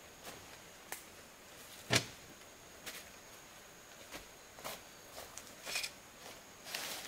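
A few irregular light knocks and clicks, with one louder knock about two seconds in, over faint background hiss.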